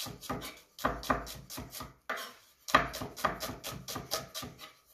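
Chef's knife rapidly slicing onion into thin julienne on a plastic cutting board: quick, even knocks of the blade on the board, about five a second, with a short break about two seconds in.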